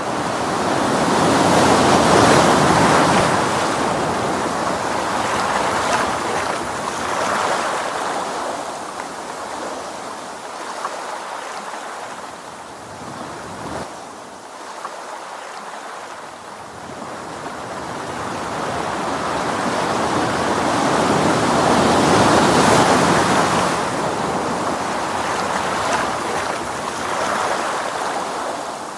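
Ocean waves washing in, a continuous rushing surf that swells and ebbs slowly, loudest about two seconds in and again about twenty-two seconds in.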